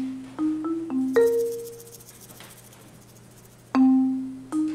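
Background music: a light tune of short struck notes, each dying away quickly, a phrase of four or five notes that starts over about three-quarters of the way through.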